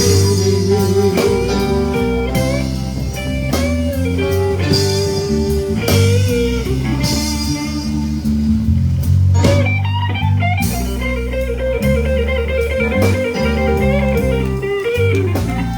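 Slow blues played live by a band, with no singing: an electric guitar lead of bent, wavering notes over bass and drums, breaking into a fast repeated-note trill about two-thirds of the way through.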